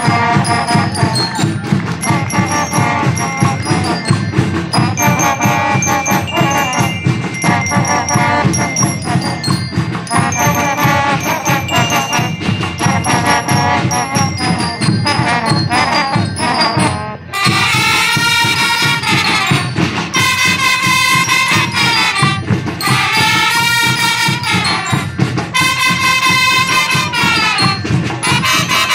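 Student marching band playing: steady drumming under a high bell melody, then about 17 seconds in the music breaks off briefly and the brass comes in with long held notes in swelling phrases.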